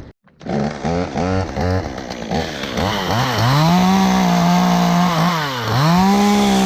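Two-stroke chainsaw revved in several quick blips, then held at high revs twice, dropping away between and after.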